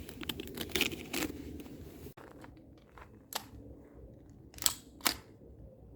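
Airsoft gun mechanism clicking and snapping: a quick run of sharp mechanical clicks in the first second and a half, then three single sharp clicks, the last two about half a second apart.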